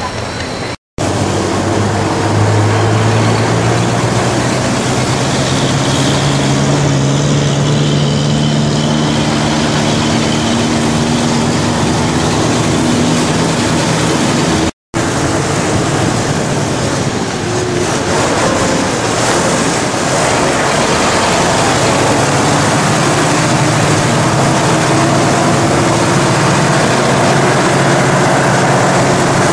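Engine of a moving vehicle running steadily, heard from on board, with its low pitch shifting a little. The sound cuts out completely twice, briefly.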